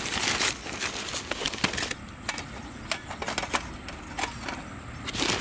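Charcoal briquettes clicking and clattering irregularly as they are handled and set into a small portable grill, with some rustling of their plastic bag.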